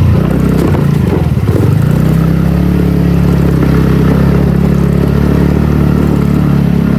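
TVS NTorq 125 scooter's single-cylinder engine running under load while riding a rough, steep track, its pitch wavering briefly about a second in and then holding steady.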